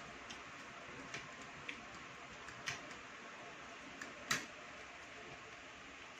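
Scattered light clicks and taps of spoons and forks against plates during a meal, about six in all with the loudest about four seconds in, over a steady faint hiss.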